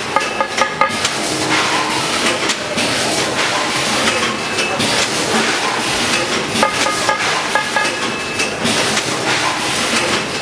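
VFS5000FS vertical form-fill-seal packaging machine and its inclined bag conveyor running, a steady mechanical clatter with a hiss. Clusters of short clicks recur at the start and again past the middle as the machine cycles through its bags.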